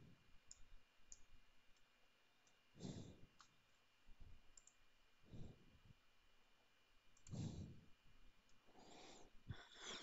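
Faint computer mouse clicks over quiet room tone, with a few soft breaths.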